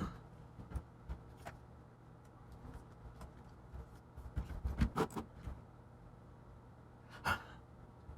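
Scattered light clicks and knocks of laptop parts being handled while a keyboard ribbon cable is plugged in, with a cluster of taps about five seconds in and a louder click near the end, over a faint steady low hum.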